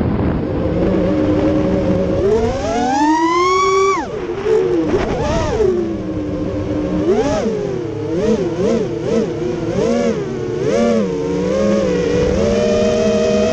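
Racing quadcopter's brushless motors and 3-blade props whining, recorded on board. The pitch climbs to a peak and drops sharply about four seconds in, then wavers rapidly up and down with the throttle, and holds steadier near the end.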